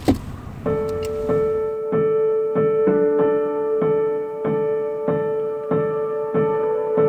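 A moment of car noise with a brief thump, then background piano music comes in under a second in: a held note with notes struck in a steady rhythm about every half second.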